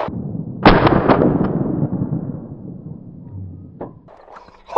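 A single shotgun shot about half a second in, its report echoing and fading away over the next two seconds. A short, sharp click follows near the end.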